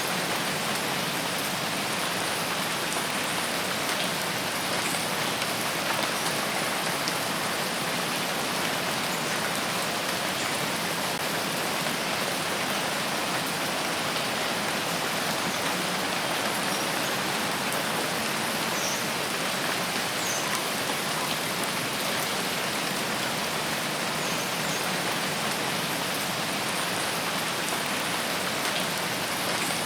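Steady rain falling on leaves and surfaces, an even hiss of many drops.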